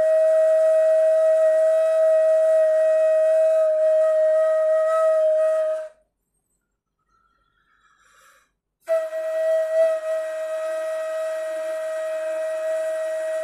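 Ney (Turkish end-blown reed flute) holding one long, steady, breathy note that stops about six seconds in; after a pause of nearly three seconds it sounds the same note again and holds it.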